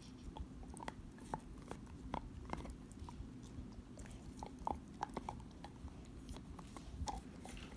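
Pit bull gnawing a green bone-shaped chew toy: irregular clicks and crunches of teeth on the toy, several a second.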